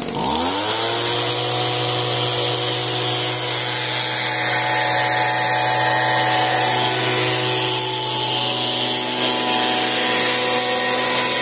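A motor spins up in about a second to a steady hum and whine that holds evenly, over a bright hiss.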